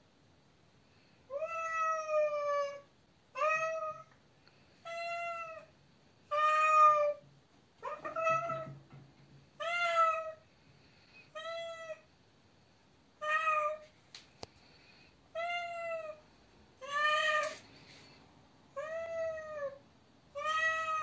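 A young ginger stray cat, caged overnight after her spay surgery, meows over and over. There are about a dozen calls, one every second and a half to two seconds, and the second call is the longest.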